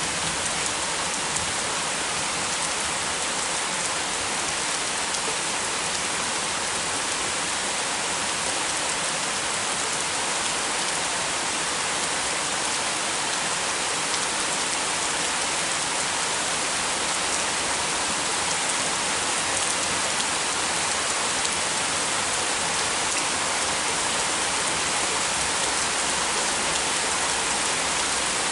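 Heavy rain falling steadily in a dense, even hiss with no thunder.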